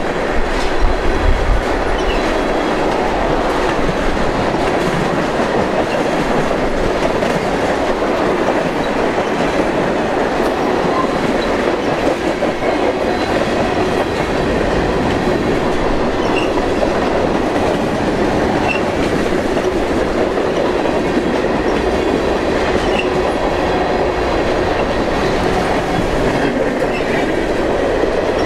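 Loaded freight cars of a long mixed train (tank cars, covered hoppers, gondolas) rolling past at about 34 mph. Steel wheels run steadily on the rails, with a few faint, brief high squeaks.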